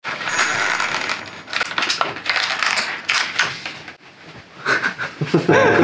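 Plastic packaging crinkling and crackling under a person's hands, with many small clicks, pausing briefly about four seconds in.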